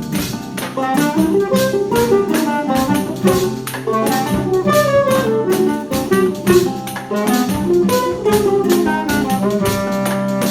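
Choro ensemble playing: a clarinet and bandolim melody over nylon-string and seven-string guitars, tuba bass and a pandeiro keeping a steady beat.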